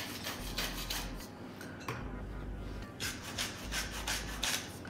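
Hand-twisted salt and pepper mill grinding seasoning over a bowl: a series of short grinding strokes, with a brief pause about two seconds in before the strokes resume.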